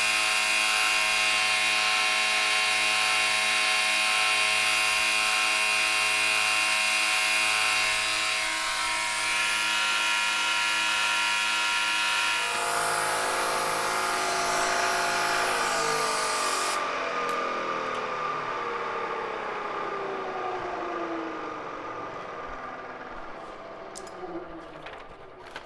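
Milling machine running with a steady whine, then shut off: about halfway the sound changes, a hiss cuts off suddenly, and the spindle winds down with a falling pitch, fading toward the end as the milling operation finishes.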